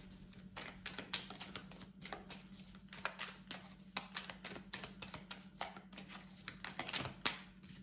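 Tarot cards being shuffled by hand: a run of soft, irregular clicks and slaps of cards against each other, over a faint steady hum.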